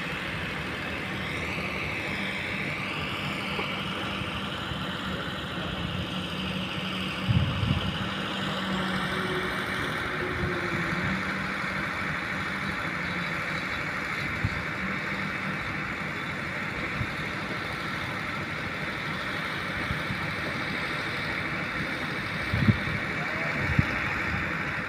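Long-boom excavator running steadily, with a high pitch that wavers up and down in the first few seconds and a few short thumps, the loudest two near the end.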